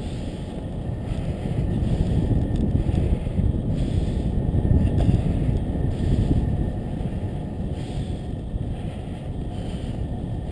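Wind buffeting the microphone of a camera on a moving bicycle, a steady low rumble that grows louder in the middle and eases off later.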